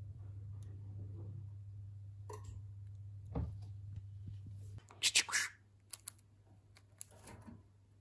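Budgerigars making soft clicks and short scratchy chirps, with a louder harsh burst of calls about five seconds in. A low steady hum underneath cuts off just before it.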